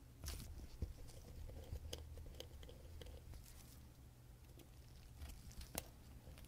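Faint, scattered small clicks of tweezers and metal parts being handled on a Waltham Vanguard pocket watch movement while the balance cock is taken off, over a low steady hum. The balance is broken and the movement is not ticking.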